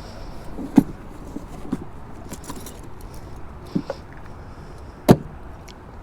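Keys jangling and clicking as they are hunted for and picked up, with a few sharp knocks, the loudest about a second in and another about five seconds in.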